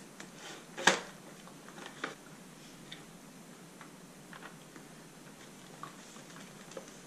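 Hard plastic parts of a Dyson DC43 vacuum being handled and fitted together. A sharp click comes about a second in, then scattered light clicks and taps.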